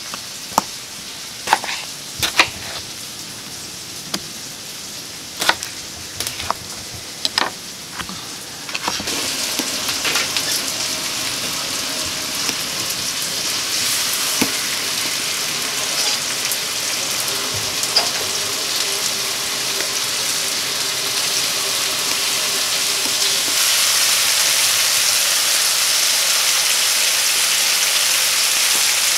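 A knife cutting tomatoes on a wooden board, heard as a series of sharp knocks. About nine seconds in this gives way to a steady sizzle of pork chops and onions frying on a hot plough-disc pan over a wood fire. The sizzle grows louder about twenty-four seconds in.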